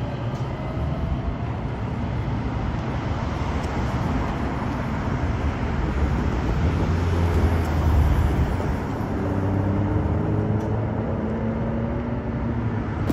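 Road traffic passing on a multi-lane street beside the light rail tracks, a low rumble of cars going by that peaks about two-thirds of the way through. The fading whine of a departing light rail train dies away near the start.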